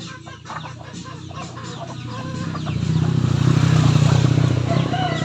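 Chickens (Rhode Island Reds and Black Australorps) clucking in short calls. A low droning hum swells in from about halfway and is the loudest sound near the end.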